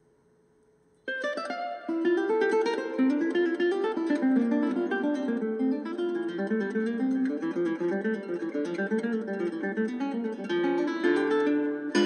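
Background music on acoustic guitar: near silence for about a second, then a strummed chord and a quick plucked melody running up and down.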